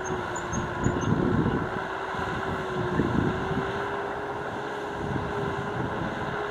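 Tractor engine running steadily under load, with a steady whine over an uneven rumble that surges now and then.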